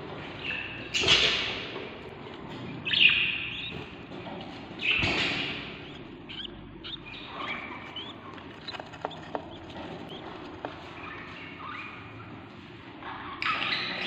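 Hungry budgerigar chicks, about 16 days old, giving raspy begging calls in a nest box. Loud rasping bursts come about a second, three and five seconds in, with softer short chirps between them and a few light clicks in the middle.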